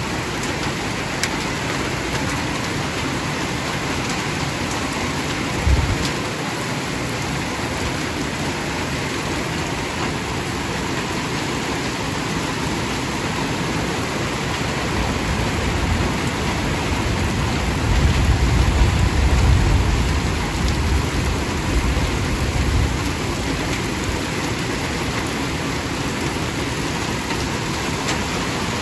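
Heavy storm rain drumming on a porch roof, a steady loud hiss. There is a single low thump about six seconds in, and a low rumble from about eighteen to twenty-one seconds in.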